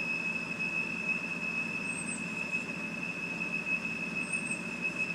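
2007 BMW 328i's inline-six idling with a steady, high-pitched whistle like a teapot, and a faint short squeak twice. The owner has been told it could be a vacuum leak and that it might be the crankcase vent valve.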